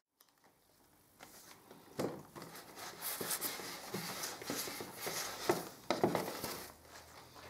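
A clothes iron is pushed and slid over thin wood veneer strips on a board, softening the veneer with heat so it will bend. The rubbing and shuffling starts after about a second of silence, with a few sharp knocks along the way.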